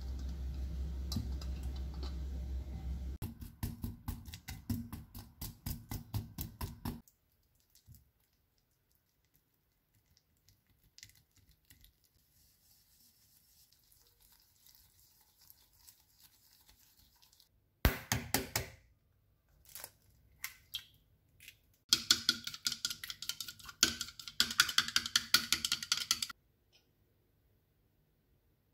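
Whisk strokes in a glass mixing bowl, beating softened butter with sugar: bouts of fast, rhythmic scraping and clinking, the last and loudest about three quarters of the way through, with a low hum over the first few seconds.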